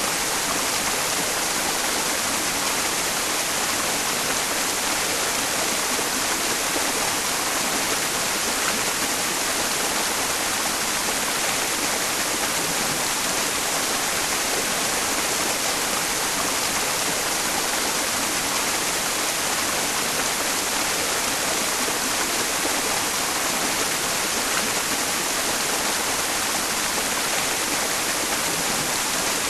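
Mountain stream running, blended with white noise: a steady, even hiss that does not change.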